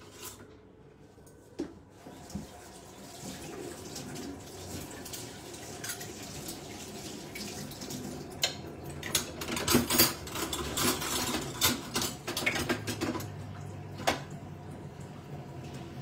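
Dishes and cutlery clattering as someone rummages for a kitchen utensil, over a steady rushing like a tap running into a sink. The clinks come thickest around the middle.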